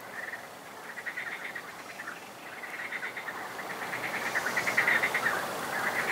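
Night chorus of calling frogs and insects: repeated rapid pulsed trills, coming in bouts of about a second and growing louder toward the end.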